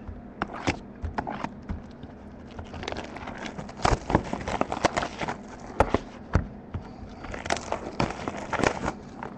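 A cardboard trading-card box being handled and opened by hand, making a run of irregular crackles, taps and rustles of packaging.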